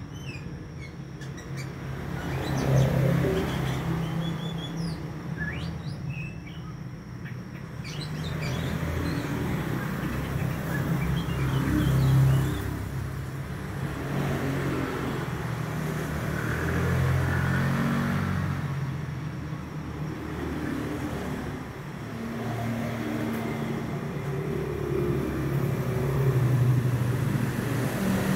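A young male Oriental magpie-robin (white-breasted kacer) giving short chirping song phrases, mostly in the first several seconds and again around the middle. Under it runs a steady low rumble of motor traffic, which is the louder sound and swells now and then as vehicles pass.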